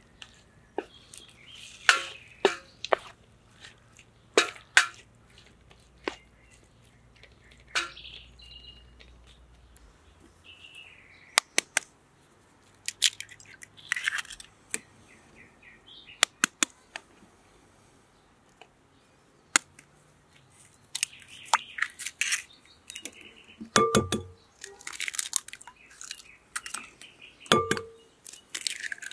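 Sharp clicks and taps of cooking work: first a wooden spoon stirring in a metal pan, then eggs knocked on the rim of a glass bowl and cracked open. The two loudest knocks, near the end, each ring the glass briefly. Birds chirp now and then.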